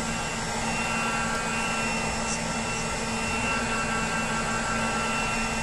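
Handheld hot air gun blowing steadily, its fan motor giving a constant whine under the rush of air, heating a phone's front glass to soften the adhesive for removal.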